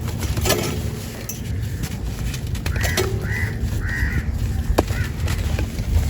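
A bird calling three short times in quick succession about three seconds in, with a fainter fourth call a second later, over a steady low rumble and a few sharp clicks.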